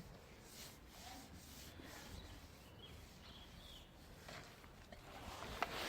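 Faint outdoor background noise with a few faint, short bird chirps.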